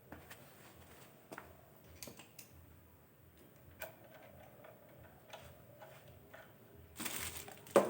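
Scattered light clicks and taps of tools and metal parts being handled during engine assembly, with a louder clatter about seven seconds in that ends in a sharp knock.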